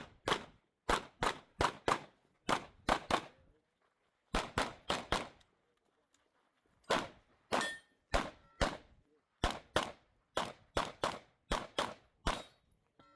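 9mm Glock 17 Gen 5 pistol firing a rapid string of about two dozen shots, mostly in quick pairs, with two short pauses. A brief ringing note follows a couple of the shots.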